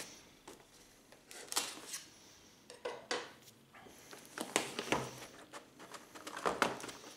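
Cardboard phone box being handled on a wooden table: the inner box slid out of its sleeve and opened, with scattered scrapes, rubs and light knocks, about four of them louder than the rest.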